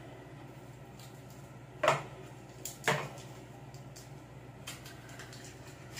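A cardboard phone box and its small accessories being handled on a wooden table: a few light taps and two sharper knocks about a second apart, over a steady low hum.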